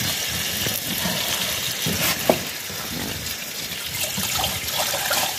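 Water poured from a plastic jug into a pot on a wood fire, splashing into it from about four seconds in, over a steady hiss. A single sharp knock comes about two seconds in.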